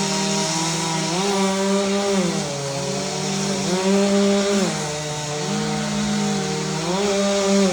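Two-stroke chainsaw running at high revs while cutting wood, its engine pitch sagging and recovering several times as the chain bogs into the cut and frees up.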